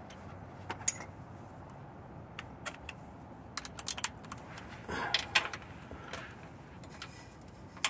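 Scattered, irregular light metal clicks and clinks of a hand tool, a socket on an extension, being handled and fitted onto a bolt on a van's gearbox casing, before it is turned by hand.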